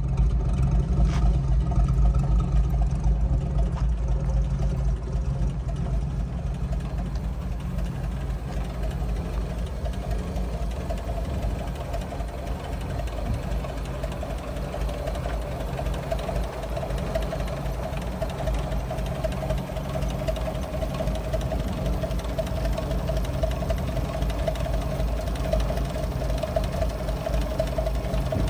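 The 3.9-litre Toyota F inline-six of a 1960 Toyota FJ25 Land Cruiser idling steadily.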